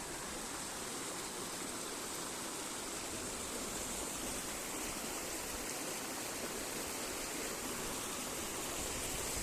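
Steady rushing of a waterfall and its stream, an even unbroken hiss of water.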